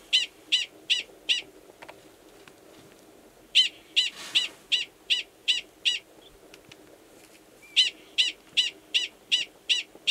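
Male Gunnison's prairie dog giving its mating call: short, high-pitched barks at about three a second, in three bouts with short pauses between them. The mating call sounds the same as the alarm call; here it is the male calling to an estrous female in a nearby burrow before he goes below to mate.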